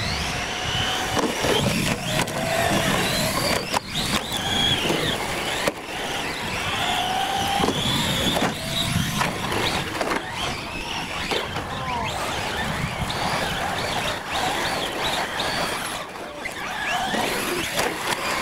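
Several small radio-controlled UTV trucks racing on loose gravel: overlapping high motor whines rising and falling in pitch with the throttle over the steady hiss and crunch of tyres on gravel, with a couple of sharp knocks a few seconds in.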